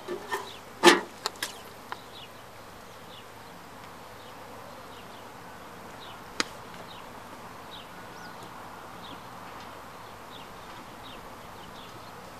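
A few knocks and a loud metal clank in the first two seconds, from a sheet-metal mailbox being handled, and a single click near the middle. Under them runs a faint steady outdoor hush with short, faint high chirps about once a second.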